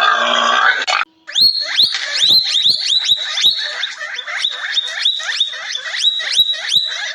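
A rough, raspy grunting sound for about a second, then a fast run of high, squeaky animal chirps, about three or four a second, each sliding down in pitch.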